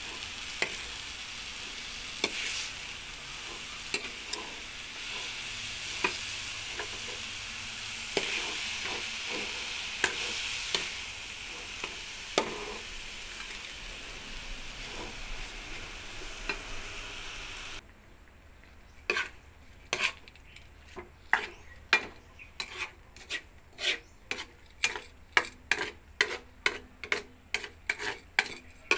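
Alamang (shrimp paste) sizzling in a hot wok while a metal spatula stirs and scrapes it. About two-thirds of the way through the sizzle drops away suddenly, leaving the spatula's regular scraping strokes against the pan, about two a second.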